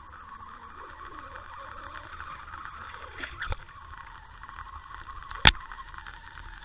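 Steady underwater hiss and crackle of water rushing past a Water Wolf submersible camera as it is reeled through the water on a fishing line. A few short clicks, the loudest a sharp knock about five and a half seconds in.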